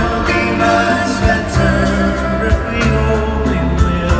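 Live band playing a soft-rock ballad: acoustic guitar, bass and a steady drum beat, with singing voices.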